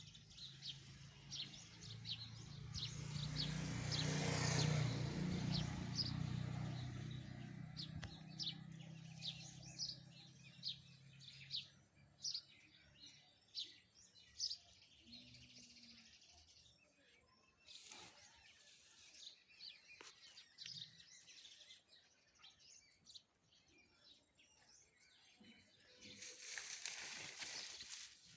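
Small birds chirping over and over in short calls. Early on, a louder noise with a low hum swells up and fades away over several seconds, and a shorter broad rush of noise comes near the end.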